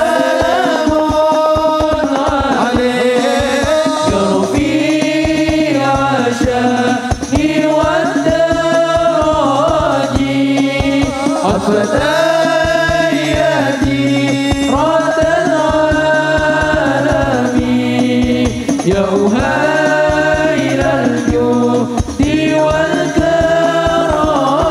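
Sholawat, Islamic devotional chant, sung by male voices into microphones over a PA, with long held melodic phrases over sustained bass notes and a steady drum beat.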